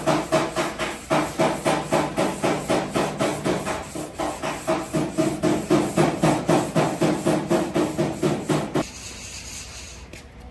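Hand sanding of a car's plastic front bumper with a sheet of sandpaper: quick back-and-forth rasping strokes, about three a second, which stop near the end.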